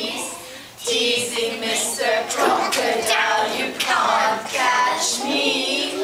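Young children's voices singing a song together, with a short break just under a second in.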